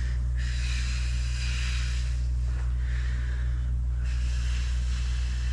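A person breathing hard through paced exercise reps: about three long, hissing breaths of one to two seconds each, over a steady low hum.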